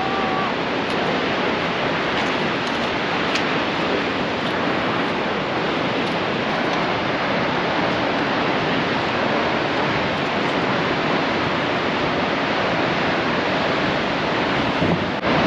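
Nevada Fall's cascading water, heard as a steady, even rushing roar.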